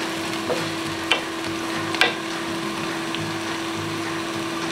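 Onions, peppers and tomatoes sizzling in a skillet on an electric hot plate, with a wooden spatula knocking against the pan a few times, sharpest about one and two seconds in. A steady low hum runs underneath.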